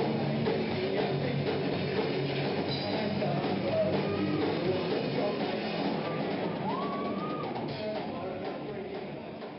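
Rock music with a drum kit and guitars playing, fading out gradually over the last few seconds.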